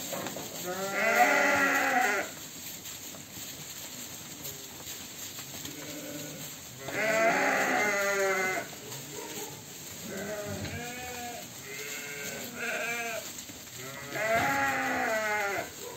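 A flock of ewes bleating. Loud wavering bleats come about a second in, around seven seconds in and near the end, with several shorter, quieter bleats between them.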